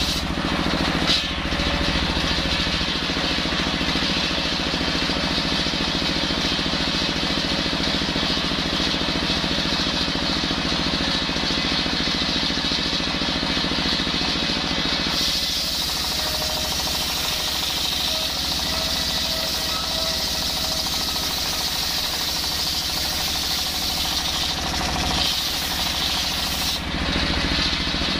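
Stationary diesel engine running steadily, belt-driving a large circular saw blade that is ripping lengthwise through a hard coconut-wood log. From about halfway the cutting noise turns brighter and hissier, easing back shortly before the end.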